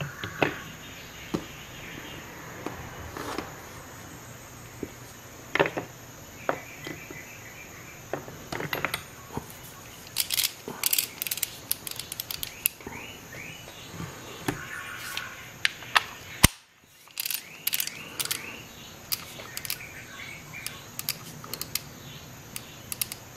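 Hand tools being handled in a plastic case: chrome sockets clinking, and a 1/2-inch socket ratchet being worked, giving runs of rapid pawl clicks.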